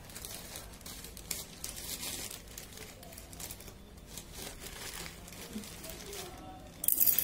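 Packaging of a puzzle-mat gift being crinkled and pulled open by hand: irregular rustling throughout, with a louder burst of crinkling near the end.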